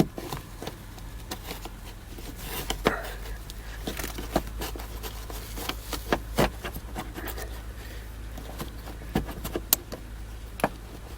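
Scattered sharp clicks, taps and light scrapes of hands working the plastic sunroof switch and map-light assembly and its wiring back into the car's overhead console, over a low steady hum.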